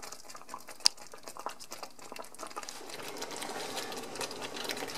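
Thick BBQ sauce with jackfruit pieces simmering in a frying pan: bubbles popping in a quick, irregular run of small clicks, with one sharper click about a second in.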